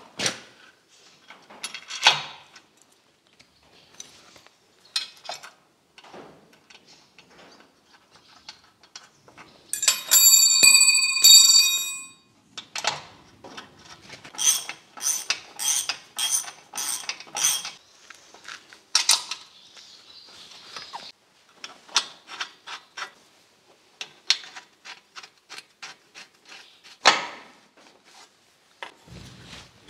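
Steel spanner working the bolts of a hydraulic multi-coupler bracket on steel: scattered metal clicks and clinks, a stretch of bright ringing metal about ten seconds in, then runs of evenly spaced clicks, about two a second.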